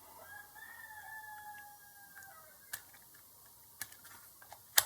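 A faint drawn-out call, held for about two seconds and then dropping in pitch, followed by a few sharp clicks, the loudest near the end, like meter probes or tools handled on a workbench.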